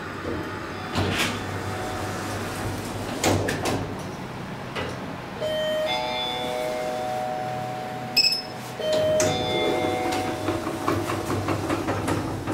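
KONE modernised hydraulic elevator riding, with a steady low hum and a few clicks. An electronic chime sounds twice, about five and a half and nine seconds in.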